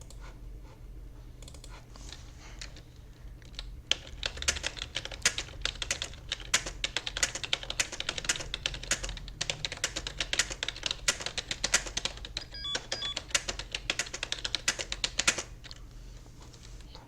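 Fast touch-typing on a computer keyboard: a rapid, continuous run of key clicks starts about four seconds in and stops shortly before the end. These are the A, semicolon and space keys of a home-row drill. A low steady hum runs underneath.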